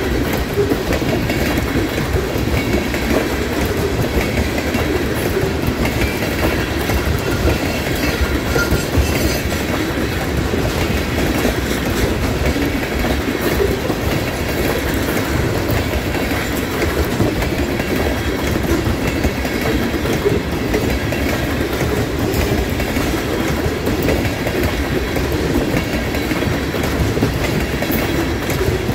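Loaded ethanol tank cars of a freight train rolling past at close range: steel wheels running steadily on the rails, with a continuous clatter of wheels over the track.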